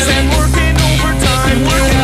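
Loud rock song: a singing voice over guitar and drums.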